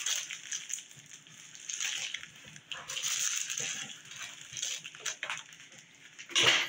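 Rustling and crinkling of plastic wrap and a fabric carrying case as a drum practice pad is pulled out and handled, in irregular bursts with a louder one near the end.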